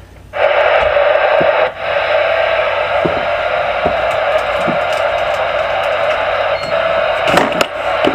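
Steady radio static: open-squelch hiss from a receiver's speaker, with a few light clicks and knocks over it.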